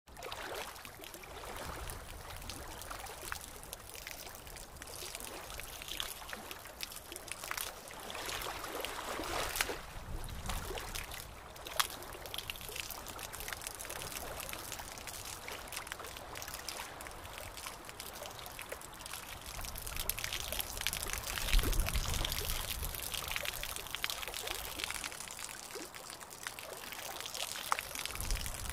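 Aquarium water trickling and bubbling steadily, with many fine crackling ticks. A low rumble swells about two-thirds of the way through.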